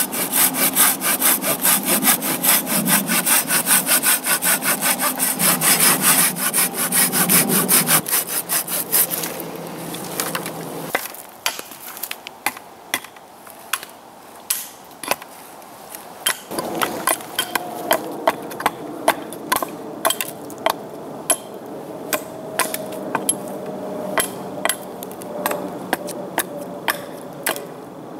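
Hand saw cutting through a wooden pole in rapid back-and-forth strokes, stopping about eight or nine seconds in. After that, a hatchet knocks on the cut pole in separate sharp strikes, about one or two a second, trimming it.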